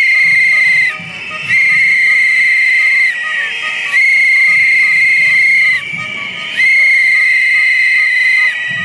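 A shrill trilling whistle blown in four long blasts of one to two seconds each, with short breaks between, as protest noise over a background of crowd noise.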